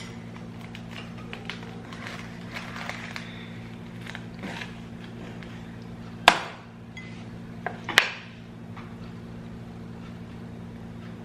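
Crispy lechon pork-belly skin crunching: a few light cracks, then two loud sharp crunches about six and eight seconds in, over a steady low hum.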